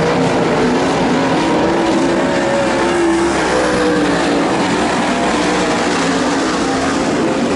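Several dirt late model race cars' V8 engines running hard at racing speed, their pitch rising and falling as they go around the track.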